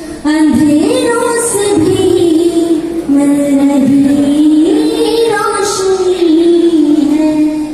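A woman singing solo into a handheld microphone, holding long notes that slide smoothly from one pitch to the next, with a short breath just after the start.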